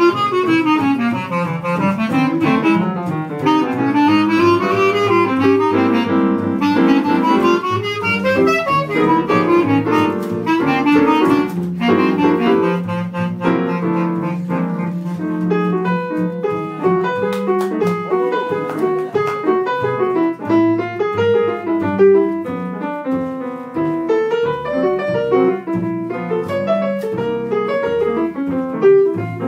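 Small jazz group playing a blues: tenor saxophone and bass clarinet lines over piano and double bass. In the second half the piano comes to the fore.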